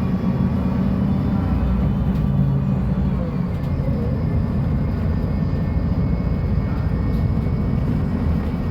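Diesel engine of a Mercedes-Benz O500U city bus (Caio Millenium IV body) running with a steady, deep drone, shifting slightly in pitch about two to three seconds in.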